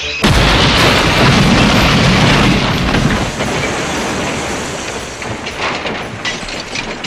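Train crash sound effect: a sudden loud impact, then a long noisy crash that slowly fades, with scattered sharp clatters near the end, standing in for a steam engine hit head-on by an express.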